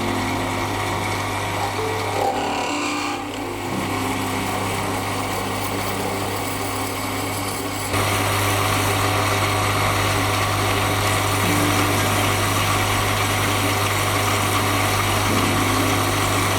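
Small benchtop metal lathe running steadily with a constant motor hum, turning brass stock for pins. The sound steps up abruptly about eight seconds in.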